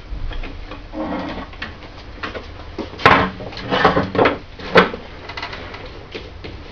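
A handful of sharp knocks and clatters, the loudest about three to five seconds in, over low shuffling in a small room.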